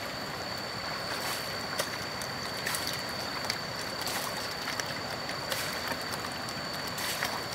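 Shallow river water sloshing and lapping around a wooden gold pan worked by hand, with a few small splashes and drips scattered through the steady wash.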